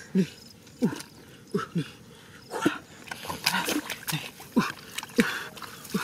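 Short animal calls, each falling in pitch, repeating about once a second, with a few splashes of hands working in shallow muddy water.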